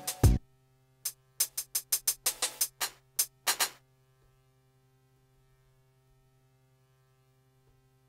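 Short, sharp drum and percussion samples triggered one at a time from a Maschine MK3's pads: a few hits at the start, then about a dozen quick hits over some three seconds. After that only a faint low electrical hum remains.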